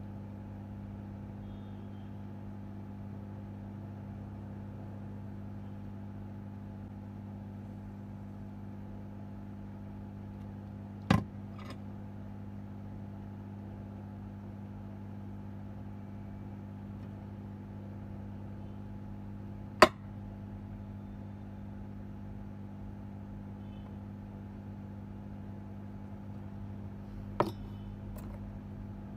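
Steady low electrical hum, with three sharp clicks or taps spread out through it, the loudest in the middle.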